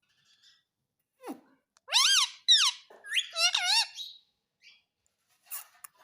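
Pet talking parrot calling: a quick falling note about a second in, then four or five high calls that rise and fall in pitch over the next two seconds, with a few faint clicks near the end.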